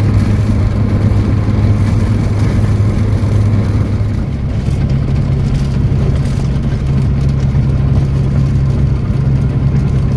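Light aircraft's piston engine and propeller droning steadily, the pitch stepping up slightly about halfway through.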